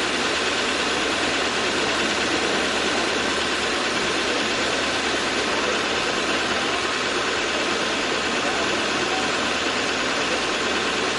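Engine running steadily at idle, a loud, even noise with no change in pitch.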